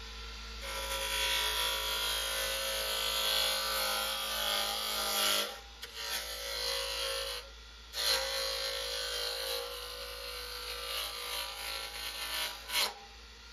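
Damascus roughing gouge cutting a spinning red oak blank on a JET wood lathe: a rough, rasping cut over the steady hum of the lathe. The cut comes in three long passes with two short breaks, and stops about a second before the end.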